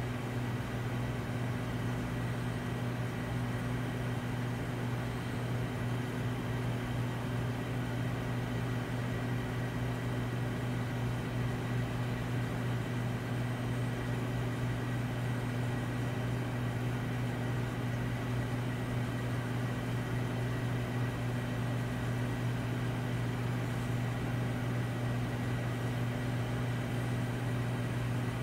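Steady low mechanical hum at one constant pitch over a faint hiss, unchanging throughout.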